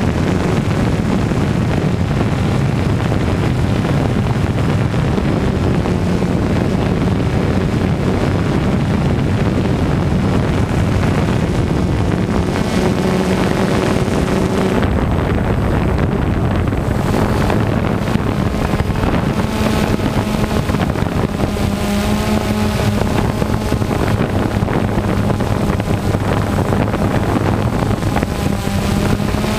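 Camera drone's electric motors and propellers humming steadily, the pitch shifting now and then as it manoeuvres, with wind rushing over the microphone.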